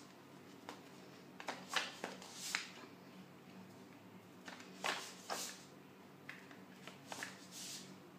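Short rustles and scrapes of a plastic shampoo bottle and knitted yarn rings being handled and slid together, about eight in all. A faint steady hum lies underneath.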